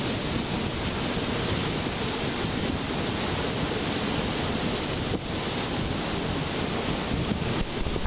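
Pacific Ocean surf breaking over rocks and foaming among the boulders of a rocky shore: a steady rushing wash, with wind noise on the microphone.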